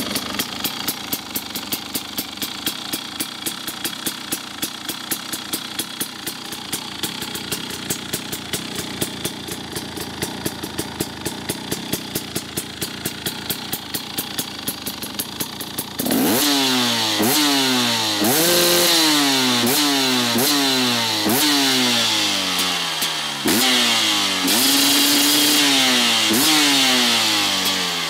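2015 Husqvarna TE250 two-stroke enduro engine idling with a steady pulse through its exhaust. About halfway in it is revved repeatedly: a dozen or so sharp blips, rising and falling, a couple held briefly.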